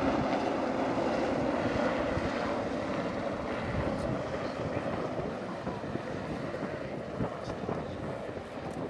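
Royal Navy Westland Sea King rescue helicopter flying low past and away, its engine whine and rotor noise steady at first and then fading gradually as it recedes.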